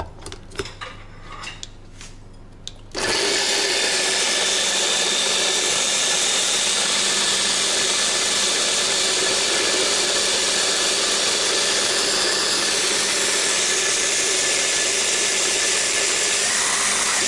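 A few clicks, then about three seconds in a Braun Minipimer 9 hand blender, fitted on its chopper bowl, starts up and runs steadily, chopping onion.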